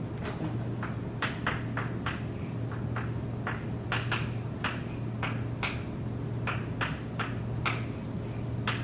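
Chalk tapping and scraping on a blackboard as words are written: short, sharp strokes, two or three a second at uneven spacing, over a steady low hum.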